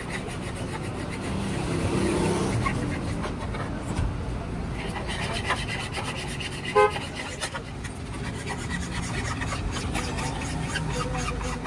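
Hands rubbing and scrubbing a wet plastic car tail light assembly, with handling knocks as the housing is moved. A brief sharp squeak comes about seven seconds in.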